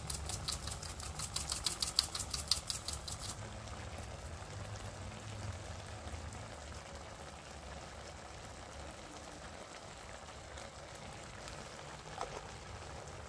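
Plastic-capped pepper bottle worked over the pan, giving a fast, even clicking of about five clicks a second that stops about three seconds in. After that there is only a low, steady background noise.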